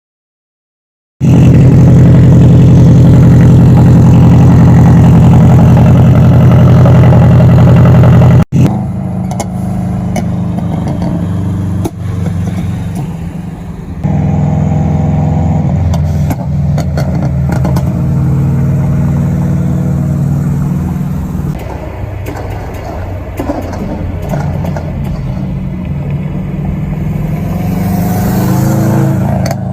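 Subaru WRX's turbocharged flat-four engine running loud on a pops-and-bangs tune. It starts about a second in and holds a steady drone, then after a sudden cut it revs and idles with sharp exhaust pops and crackles scattered throughout.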